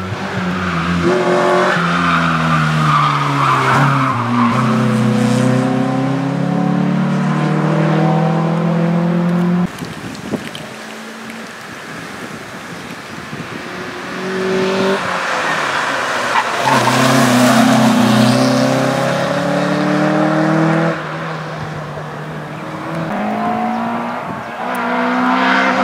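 Small hatchback competition cars driven hard through a tight cone slalom: engines revving up and dropping again and again as they accelerate, shift and brake, with tyres squealing in the corners. The sound cuts abruptly from one car to the next, about ten seconds in and again about twenty seconds in.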